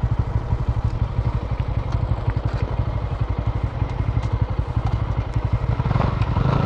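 Single-cylinder motorcycle engines idling steadily at a standstill, the Bajaj Pulsar N160's own engine beside a second bike, an even rapid low pulsing.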